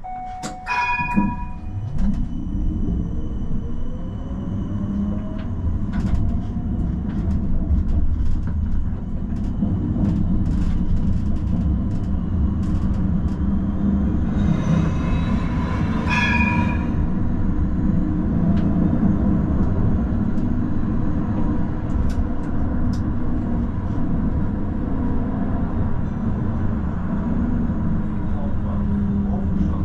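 Tram pulling away and running along its track. The motor whine rises for several seconds as it accelerates and then settles into a steady running rumble with scattered clicks. A short ringing signal sounds near the start and again about halfway through.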